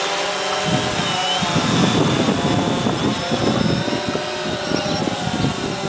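CX-20 quadcopter flying overhead, its motors and propellers giving a steady whine whose pitch wavers slightly as it holds position in the wind. From about a second in until near the end, loud rumbling gusts of wind on the microphone lie over it.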